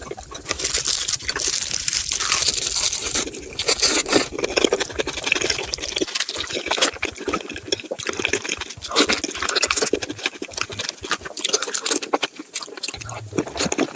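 Close-miked eating of Korean marinated raw crab (gejang): rapid crunching and cracking of crab shell in the mouth, mixed with wet, juicy chewing.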